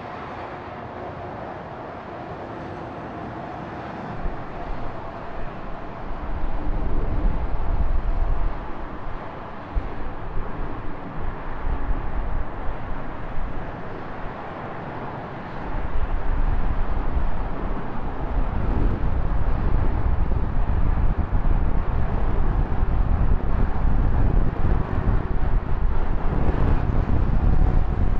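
Wind buffeting a bike-mounted action camera's microphone while riding, over steady traffic noise. The low rumble of the wind comes in a few seconds in, eases briefly near the middle, then turns heavy and constant for the second half.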